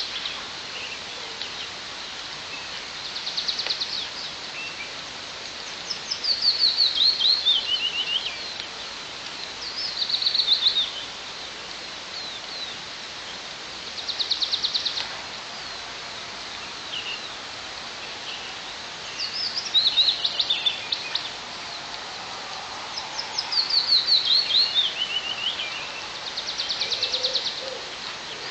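Small songbirds singing in turns over the steady hiss of light rain: several falling songs of quick notes, each a second or two long, and a short rapid trill three times.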